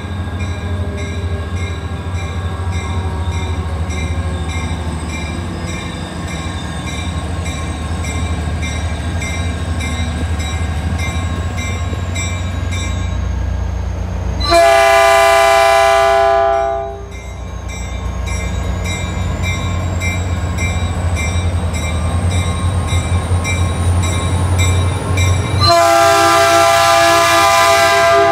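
Caltrain F40PH-2 diesel locomotive approaching on the platform track, its EMD 16-cylinder two-stroke diesel running with a steady low rumble. The locomotive sounds its multi-chime horn twice: a blast of about two seconds halfway through and another beginning near the end.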